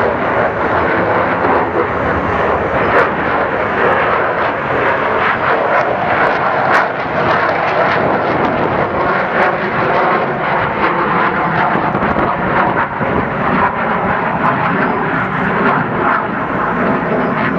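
Lockheed F-35 Lightning II's single F135 turbofan at high thrust on departure: a loud, steady jet roar with a ragged crackle running through it.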